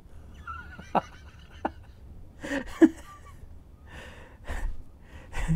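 A plastic model locomotive shell and small parts being handled: a few sharp clicks and taps, the loudest about three seconds in, between short audible breaths.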